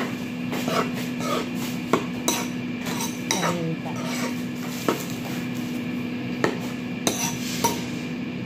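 Metal fork stirring a thick cucumber-and-yogurt mix in a ceramic bowl, with the soft scrape of stirring and sharp, irregular clinks as the fork hits the bowl.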